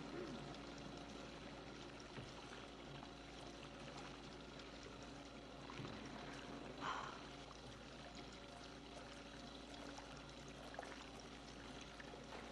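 Faint steady rush of running water from a whirlpool hot tub, with one short, louder sound about seven seconds in.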